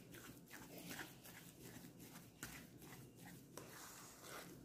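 Faint, irregular scraping and squishing of a silicone spatula mixing mashed potatoes and cream in a stainless steel bowl.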